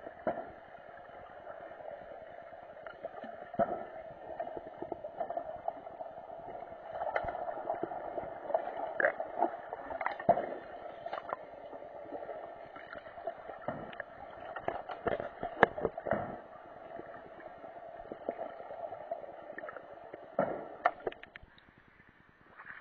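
Muffled underwater noise in a swimming pool during underwater hockey play: a steady hum with scattered sharp clicks and knocks. The underwater noise falls away shortly before the end.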